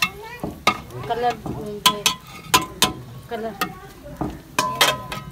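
Metal utensils clanking and a spoon stirring and scraping in a metal cooking pot, with a dozen or so sharp clinks, some ringing briefly.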